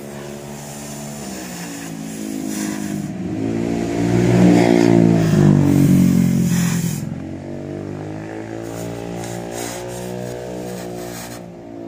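A motor vehicle's engine passes close by, growing louder to a peak about four to six seconds in, then fading, its pitch bending as it goes. A steady hiss from a cutting torch on sheet metal runs underneath.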